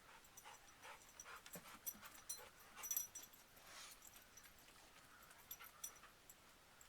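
Labrador retriever panting faintly, with a few soft whimpers and light clicks.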